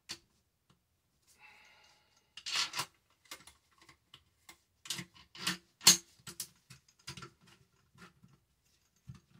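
Metal clicks and clacks of a Remington 870 Tac-14 pump shotgun's parts as the trigger group is worked loose and lifted out of the receiver. The clicks come irregularly for several seconds, the loudest about six seconds in, after a brief scrape near the start.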